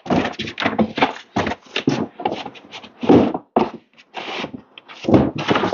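Cardboard shipping box and its packing being rummaged through by hand: a quick, irregular run of rustles, scrapes and knocks.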